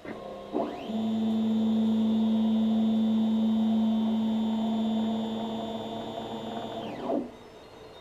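MakerBot 3D printer's stepper motors whining through a move: the pitch rises about a second in, holds steady for about six seconds, then drops away near the end. This is the grinding noise the printer's owner is recording.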